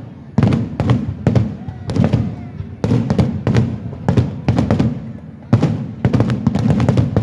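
Aerial fireworks bursting in rapid succession: a dense run of sharp bangs, several a second, over a steady low rumble, with the loudest bang about five and a half seconds in.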